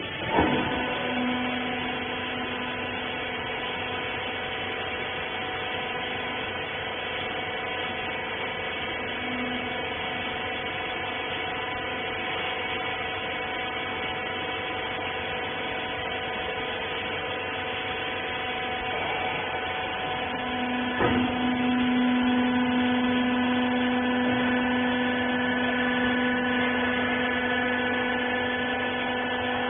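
Hydraulic rag baler's electric motor and pump running with a steady hum and whine. There is a knock about half a second in and another about 21 seconds in, after which the low hum grows louder and stays up.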